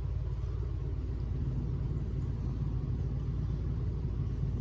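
Steady low background rumble with no clear events in it.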